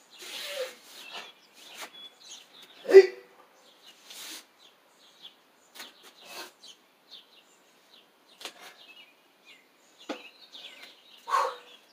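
Scattered swishes of clothing and footfalls as a man performs a karate kata, with one loud, sharp sound about three seconds in. Faint bird chirps sound in the background.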